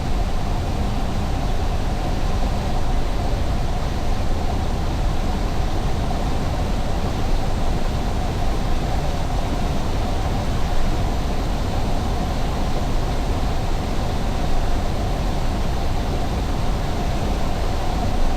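Steady road and tyre noise of a car driving at highway speed, an even rushing with a low rumble underneath.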